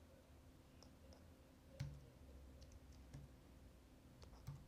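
A few faint, scattered clicks from working a computer's keys and mouse, one a little louder about two seconds in, over a low steady room hum.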